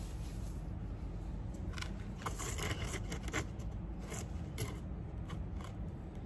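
Dry potting mix, mostly raw rice husks with compost, andam, sand and cocopeat, rustling and scraping as gloved hands toss and stir it on a hard floor. It comes as a string of short, uneven rustles from about two seconds in until near the end.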